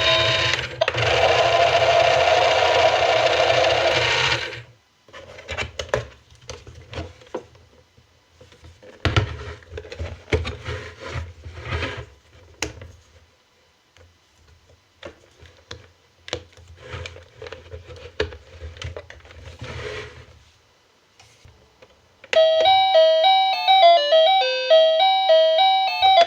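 Battery-operated toy washing machine: a steady low hum at first, then scattered plastic clicks and rattles with the hum coming and going. Near the end it plays an electronic beeping tune.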